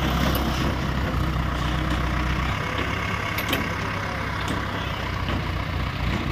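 Diesel engine of an ACE 16XW pick-and-carry mobile crane running steadily, its low hum easing about two and a half seconds in and building again near the end. A couple of light clicks sound in the middle.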